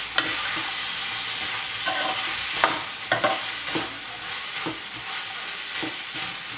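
Batter-fried prawns, onion and capsicum sizzling in a frying pan as a steel spatula stirs and tosses them to coat them in the soy-chilli sauce, with a scrape or knock of the spatula against the pan every second or so.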